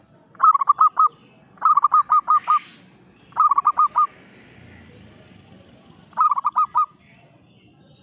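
Zebra dove (perkutut) cooing: four bursts of five or six quick, clipped coo notes, the first three close together and the last after a longer pause.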